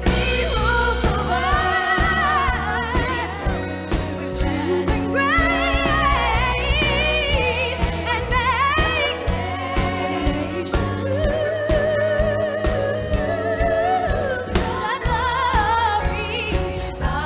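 A female vocalist singing long held notes with wide vibrato over a live band with a drum kit keeping a steady beat.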